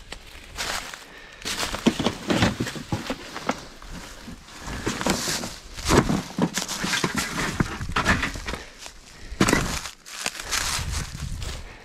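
Footsteps crunching through dry dead leaves and twigs, an uneven crackling with the loudest step about six seconds in.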